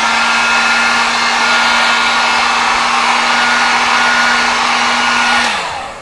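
Handheld craft heat gun running, a steady fan whir and rush of air with a constant hum, then switched off about five and a half seconds in, its pitch dropping as the fan winds down.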